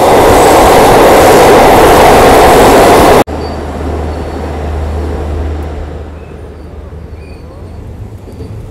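Passenger train running on the rails, heard from aboard as a very loud rushing rumble that cuts off abruptly about three seconds in, leaving a much quieter run with a steady low hum.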